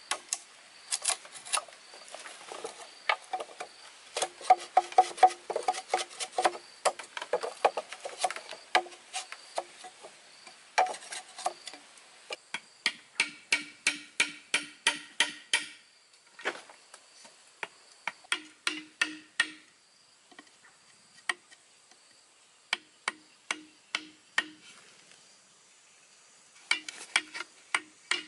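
A machete chopping into green bamboo, then a wooden mallet striking a chisel to cut into a bamboo pole. The mallet strikes come as short runs of sharp knocks, about three or four a second, with pauses between.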